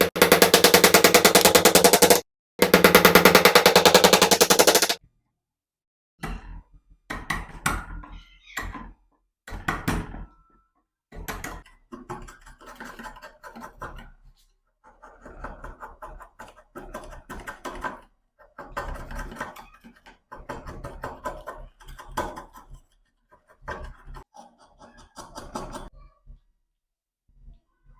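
A power tool runs in two loud bursts of about two seconds each, with a rapid buzzing pulse. These are followed by a long stretch of irregular knocks and taps, coming in clusters.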